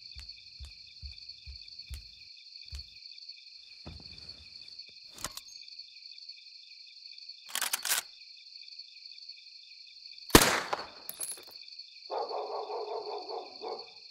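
A steady, high, pulsing chirring runs throughout, like crickets. Over it come a few soft low thuds in the first three seconds, plastic clicks and rattles around eight seconds as a toy blaster is handled, and a sharp crack a little past ten seconds, the loudest sound. A buzzing hum follows for about two seconds near the end.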